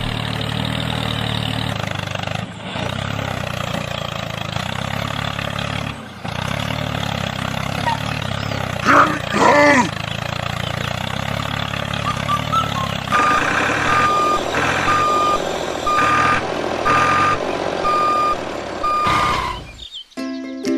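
Tractor engine running steadily, with a short loud warbling sound about nine seconds in. In the second half a reversing beeper sounds in a steady rhythm, a little faster than once a second, before the sound cuts to music near the end.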